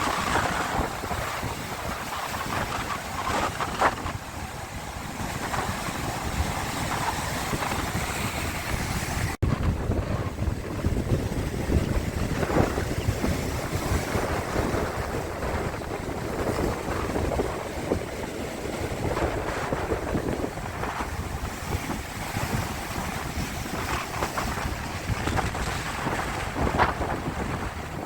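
Sea waves washing and breaking, with wind buffeting the microphone. A sudden break about nine seconds in, after which the surf sounds deeper.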